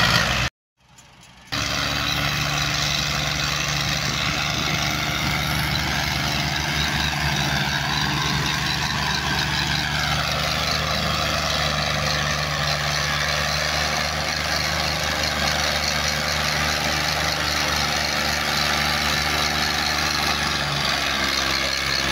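Heavy diesel engine of a tractor or excavator running steadily under load. It comes in after a short break of silence about a second in, and its pitch swells a little and falls back around the middle.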